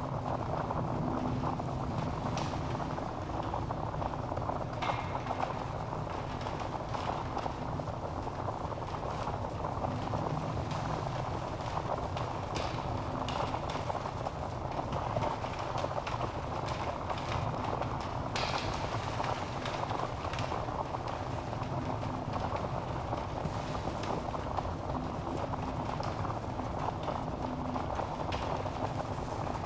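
Wood fire burning in a fireplace: a steady low rush of flames with frequent sharp crackles and pops from the burning logs, coming at irregular moments.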